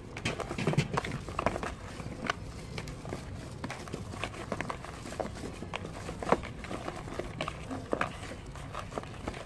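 Small cucumbers being rubbed with salt by hand in a plastic basin, knocking against each other and the bowl's sides in irregular clicks and knocks, busiest in the first couple of seconds.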